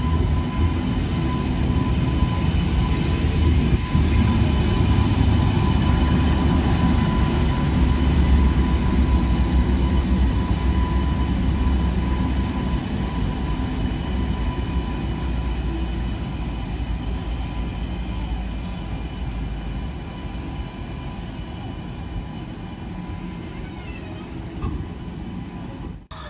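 WAP7 electric locomotive passing at a crawl, a low rumble with a steady high whine, loudest in the first half. It is followed by the coaches rolling by over the rails, the sound fading gradually.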